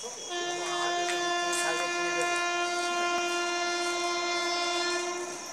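Locomotive air horn of the approaching 12301 Howrah–New Delhi Rajdhani Express, sounding one long steady blast of about five seconds as the express runs through the station without stopping. Crickets chirp steadily behind it.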